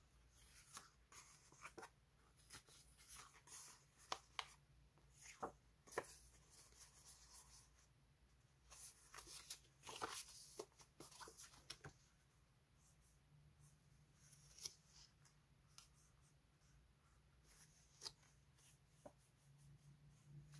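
Quiet rustling and crisp clicks of paper label sticker sheets being handled, slid and shuffled against each other. Busiest in the first half, then sparser.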